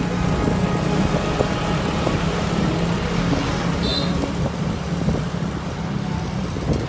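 Steady hum of a small motorcycle engine with wind and road noise while riding in scooter traffic. A short high beep sounds about four seconds in.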